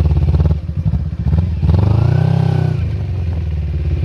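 Small petrol engine of a home-built go-kart running with a fast, low exhaust pulse. It drops back for about a second early on, then revs up and back down about two seconds in.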